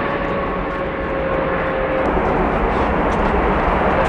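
Large jet airliner landing: its engines give a steady whine over a rushing noise, and the whine fades out about halfway through while the rush goes on.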